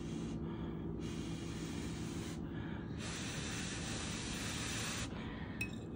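A person blowing on a hot forkful of cake to cool it: three long, breathy blows, with a small click near the end.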